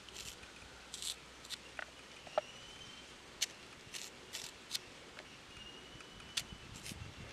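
Raw green plantain slices being peeled and split by hand: scattered short crisp clicks and snaps at irregular intervals as the firm peel bends and breaks away from the flesh.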